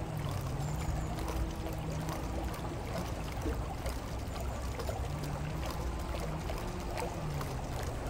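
Flowing river water splashing and churning as the rotating paddle plates of a small hydrokinetic water-turbine model dip through the current, with a low hum that comes and goes.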